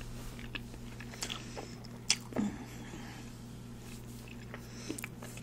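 Close-miked chewing of a mouthful of food: soft, wet mouth clicks and smacks scattered through, a sharper one about two seconds in, over a low steady hum.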